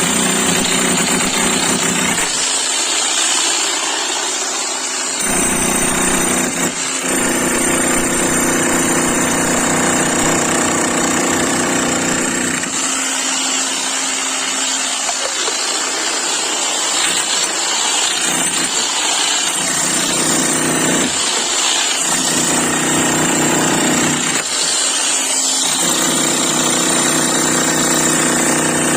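11 kg electric demolition hammer running loud and continuously. Its deeper pounding drops away several times for a second or more and then comes back.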